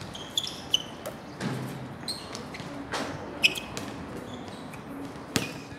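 A basketball bouncing and striking hard on an outdoor court: a scatter of sharp thuds, the loudest about five seconds in, mixed with short high squeaks.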